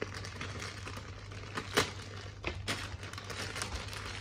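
Clear plastic bag of gold-plated plastic model kit runners crinkling and rustling as it is handled and opened, with scattered sharp ticks and clicks. The loudest click comes a little under two seconds in.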